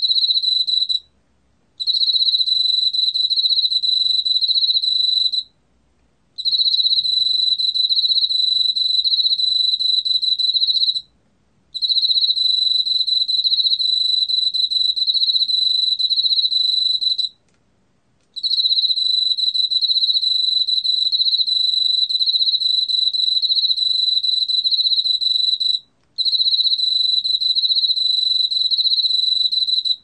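Emma field cricket (Teleogryllus emma), a male, singing its high-pitched calling song at 23 °C: long unbroken trills of several seconds each, broken by brief pauses about every five seconds.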